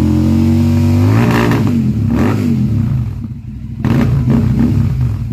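Royal Enfield Super Meteor 650's 648 cc parallel-twin engine revved through aftermarket Rhino Racing exhausts. The revs are held high and climbing, then the throttle is closed about a second in and the revs fall with a few sharp pops. The engine dips to idle and is blipped once more before settling near the end.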